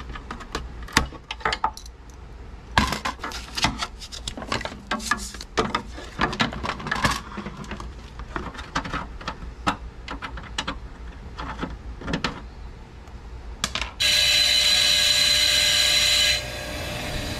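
Scattered clicks, taps and knocks of wires and small parts being handled and pulled out of a blower's plastic housing. Near the end a bench grinder suddenly starts up loud, grinding a piece of wire with a steady high whine. About two seconds later it drops to a quieter run.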